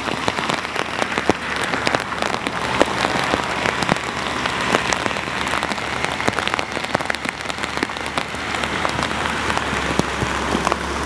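Torrential rain pouring down, a dense steady hiss with many sharp, close drop impacts. A low steady rumble joins in near the end.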